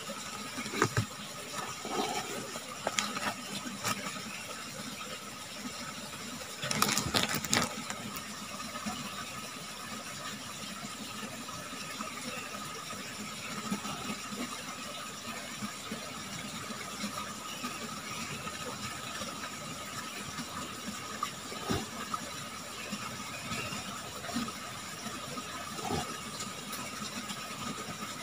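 Steady rush of a small forest stream with a faint steady high tone over it. A few brief rustles and knocks from handling close by, the loudest cluster about seven seconds in.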